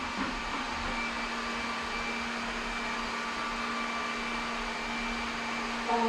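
iLife robot vacuum cleaner running: a steady motor hum with a constant whine.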